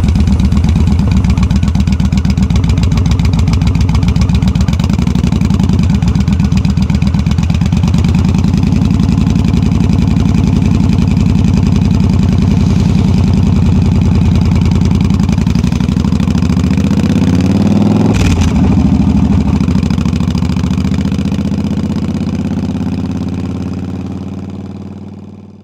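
Yamaha V Star 1300 V-twin with loud drag-pipe exhaust, running at low speed with a steady pulsing beat. About two-thirds of the way through, the revs climb with a brief sharp break, then the sound fades out.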